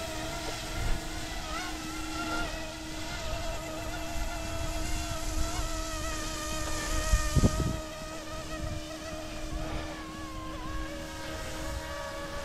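Electric motors and rotors of a small YXZNRC F09-S UH-60-style RC helicopter whining in flight: a buzz of several held tones that shift slightly in pitch. A few low thumps come about seven seconds in.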